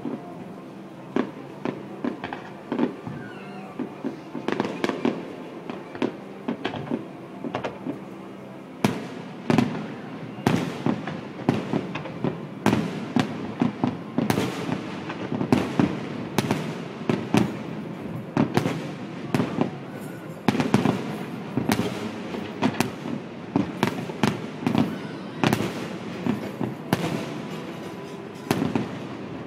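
Fireworks display: aerial shells bursting in a string of sharp bangs, scattered at first and then coming thick and fast from about nine seconds in.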